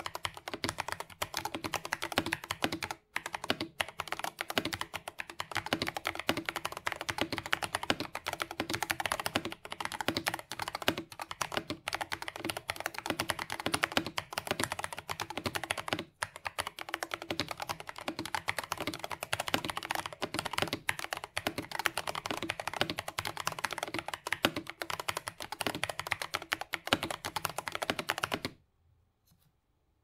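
Fast, continuous typing on a Royal Kludge RK68 mechanical keyboard with factory-lubed Tecsee Purple Panda tactile switches, a steel plate, foam and tape mods, and PBT keycaps: a dense run of keystrokes. The typing pauses briefly twice, then stops a little before the end.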